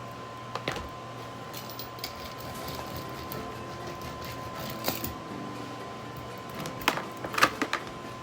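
Scattered light clicks and taps, a few at a time, growing busier near the end, over a faint steady hum.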